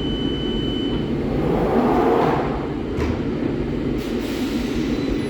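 London Underground 2009 Stock (Bombardier Movia) train at the platform, a steady rumble and hiss with two sharp knocks about three and four seconds in.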